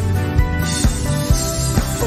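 Slow Christian worship music with a steady beat, about two beats a second, over sustained low chords.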